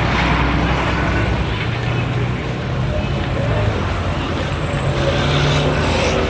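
Road traffic: cars and motor scooters driving past close by, a steady engine hum throughout.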